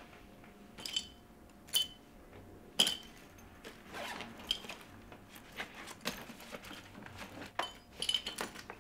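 A bag being handled and opened: three sharp metallic clinks of its zipper or hardware in the first three seconds, then a run of rustling and small clicks as it is gone through.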